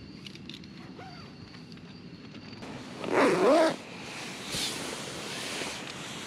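Tent fabric and bedding rustling as gear and the camera are handled inside a tent, with a brief loud wavering pitched sound about three seconds in.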